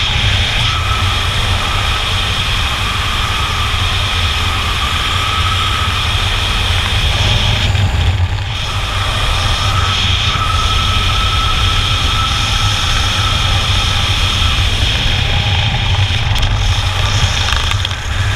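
Wind rushing steadily over a GoPro camera's microphone under an open parachute canopy, a loud buffeting rumble with a faint thin whistle that comes and goes.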